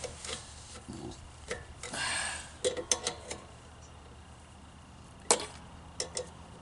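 Scattered sharp clicks and taps of hand tools and a plastic fitting being worked at on a mower engine, with a short scrape about two seconds in and the loudest click about five seconds in, over a steady low hum.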